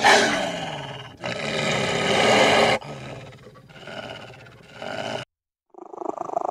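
Wolf growling in four long, rough bursts, loudest at the start, stopping abruptly about five seconds in.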